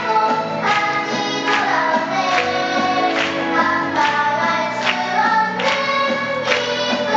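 A group of voices singing a song together over instrumental accompaniment, with a steady beat about every 0.8 seconds.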